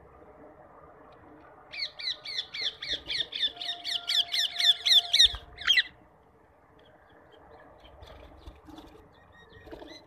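Rose-ringed parakeet giving a rapid series of shrill squawks, about four a second, for around four seconds, ending in one longer call. Fainter calls follow near the end.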